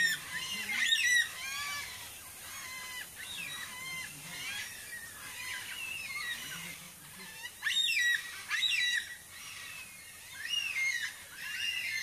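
Several Carnaby's black-cockatoos calling over one another, a run of repeated wavering calls. The calling is loudest in the first second and again from about eight seconds in.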